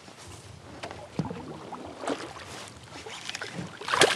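A hooked northern pike thrashing and splashing loudly at the water's surface beside a kayak near the end, after a few scattered small knocks and ticks.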